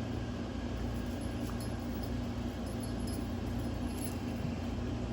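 Steady low room hum with a few faint, light clinks.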